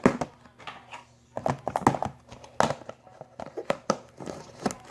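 Handling noises: a string of irregular crinkling clicks and crackles from slime and small objects being handled on a table.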